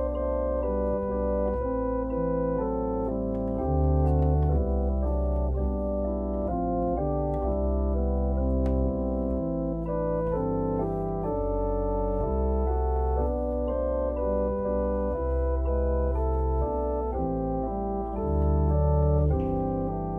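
Organ music: slow sustained chords over deep held bass notes that change every second or two.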